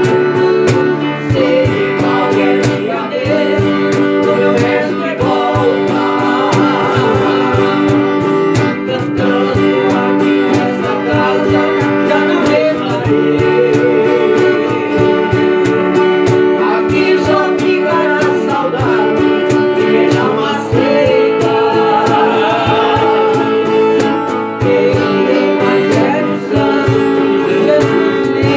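Music: a viola caipira played with plucked strings, with a voice singing over it.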